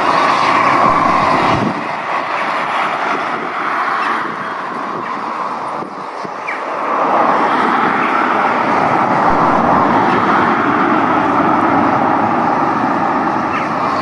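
Road traffic passing close by mixed with the steady running of a slowly reversing steam locomotive, GWR 'Saint'-class 4-6-0 2999 'Lady of Legend'. The noise dips about six seconds in and swells again a second later.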